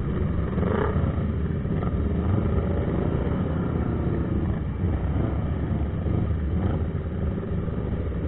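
Many motorcycle engines running at low speed in a dense slow-moving pack of sport bikes, heard from one of the bikes: a steady, mostly low rumble.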